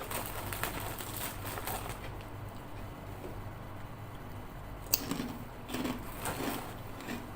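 Pork crackling being chewed and crunched, with small irregular crackles and one sharp click about five seconds in.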